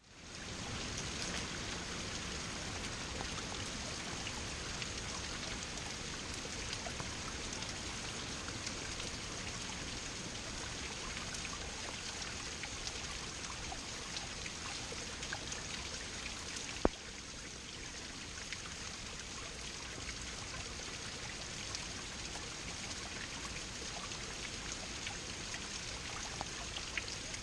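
Small waterfall splashing steadily into a pool, with one sharp click about two-thirds of the way through.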